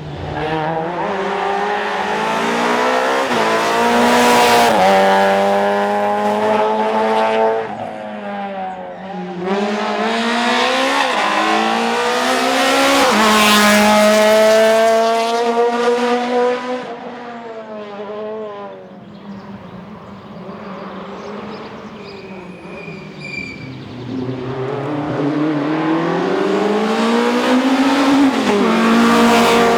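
Rally cars accelerating hard on a stage, the engine note climbing and dropping back at each gear change, growing loud and then fading as the cars go by. Another car's engine builds up again near the end.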